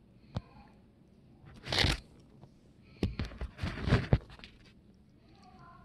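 Handling noise as the phone is moved and jostled: a sharp click, then bursts of rustling and crunching with a few knocks, loudest about two seconds in and again about four seconds in.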